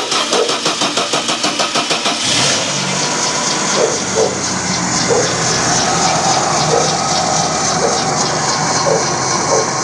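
A 1.6-litre car engine cranking with a rapid pulsing for a couple of seconds, then catching and running steadily.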